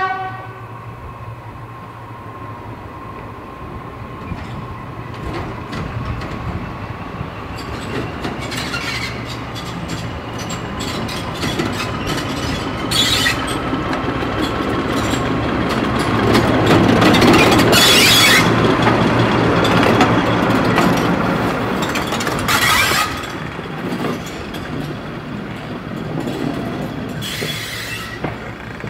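British Rail Class 14 diesel-hydraulic shunter running under power as it approaches and passes hauling a coach, its steady engine note growing louder to a peak about two-thirds of the way through and then easing. Short bursts of wheel and rail noise come four times as the loco and coach go by.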